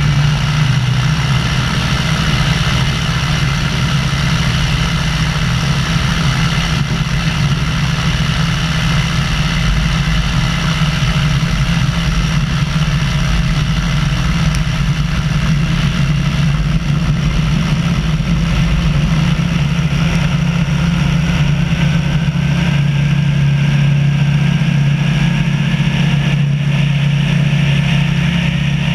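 Tecnam P92 ultralight's engine and propeller running steadily through the takeoff roll and lift-off, mixed with wind rush on a wing-mounted camera. The drone's pitch rises slightly in the second half.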